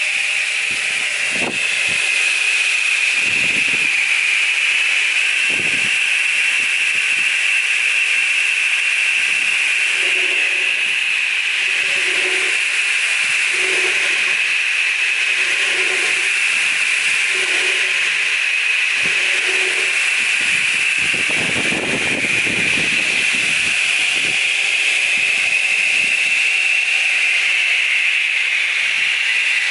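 DeWalt radial arm saw running at full speed with a steady high whine and hiss from its motor and blade, while the blade is pulled through boards in a crosscut. A broader, lower rush comes about two-thirds through.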